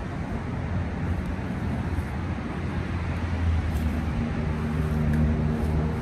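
Road traffic rumble, with a heavy vehicle's engine hum growing louder in the second half and dropping away near the end.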